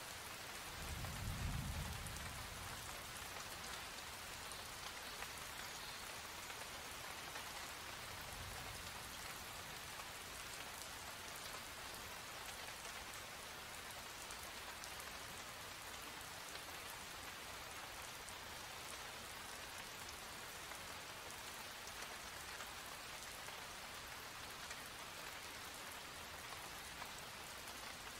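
Steady rain falling, an even hiss of drops on hard surfaces, with a low rumble about a second in and a fainter one around eight seconds.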